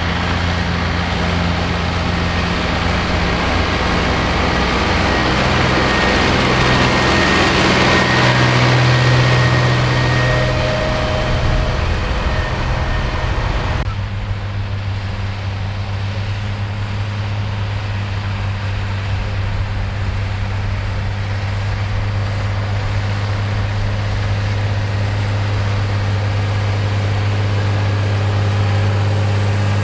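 Tractor diesel engines working in a field. The first engine rises in pitch around a third of the way in. About halfway through the sound changes abruptly to a New Holland T6090's six-cylinder diesel running steadily.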